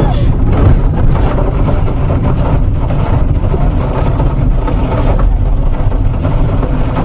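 Car running off-road across a rough, dry field: a loud, steady rumble of tyres and suspension jolting over the uneven ground, heard from inside the cabin.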